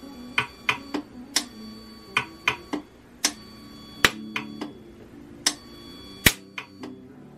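Orion 100C micro-arc pulse welder tack-welding two razor blades together: a quick, irregular series of sharp snaps, about a dozen, each one a weld pulse arcing against the steel.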